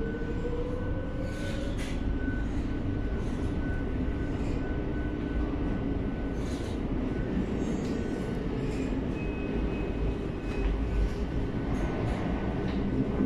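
Madrid Metro series 8400 electric train running through a tunnel, heard from inside the passenger car: a steady rumble of wheels and running gear. A faint whine rises in pitch over the first couple of seconds.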